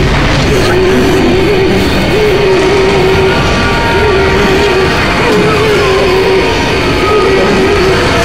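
Loud rock music with a heavy, dense sound and a wavering melody line running through it.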